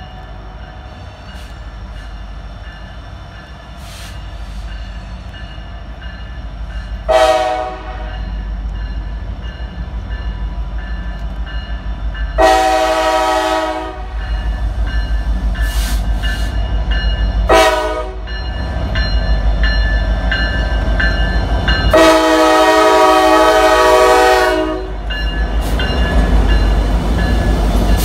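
Norfolk Southern SD70ACU diesel locomotives pulling a loaded coal train, their low engine rumble growing louder as they approach and pass close by. The horn sounds four times, the third blast short and the last held about three seconds, in the pattern of the long-long-short-long grade-crossing signal.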